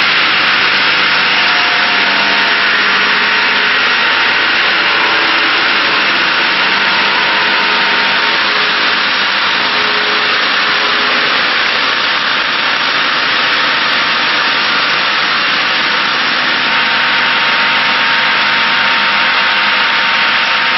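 Double circular-blade angle sawmill running, its blades making a steady, loud sawing noise.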